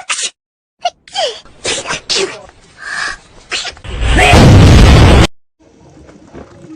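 A quick series of short sneezes, one after another, then a very loud, distorted blast lasting just over a second that cuts off sharply.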